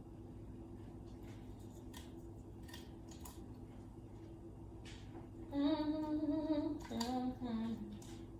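A few faint clicks and taps, then a woman's voice humming two short wavering phrases near the end.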